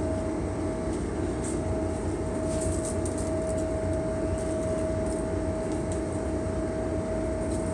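Steady low machinery drone of the towboat, with a constant hum tone, and a few faint rattles of a seasoning shaker being shaken over the pan.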